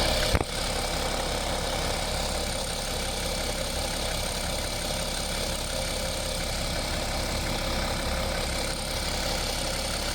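BMW 535d's N57 3.0-litre biturbo straight-six diesel idling steadily, freshly refilled with oil. A single sharp click about half a second in.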